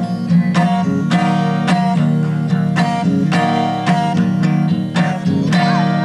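Acoustic guitar strumming chords in a steady rhythm, an instrumental passage with no singing.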